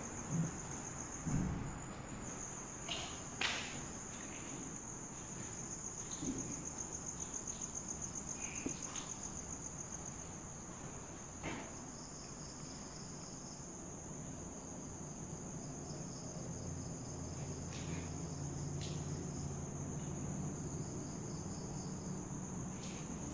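Night insects trilling steadily in a high, fine-pulsed chorus, with a few scattered light knocks.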